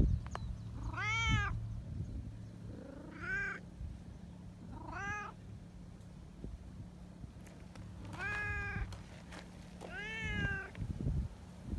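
Brown tabby cats meowing while being stroked: five short meows, each rising then falling in pitch, spaced one to three seconds apart.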